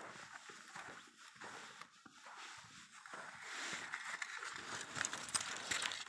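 Crunching and rustling footsteps through thin snow and dry undergrowth, with scattered small cracks, growing louder and denser about halfway through.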